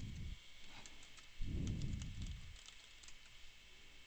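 Faint clicking of computer keyboard keys as a user name is typed. Two soft low rumbles of about a second each sound under the clicks, the first about one and a half seconds in.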